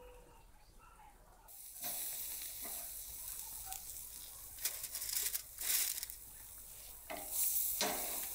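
Steaks sizzling on a grill grate, with several louder crackling bursts as tongs lift the meat off. The sizzle starts suddenly about a second and a half in, after a quiet opening.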